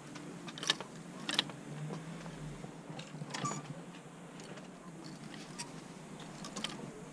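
Clothes hangers clicking against a metal clothes rail as garments are pushed along it, a few separate sharp clicks over a low steady hum.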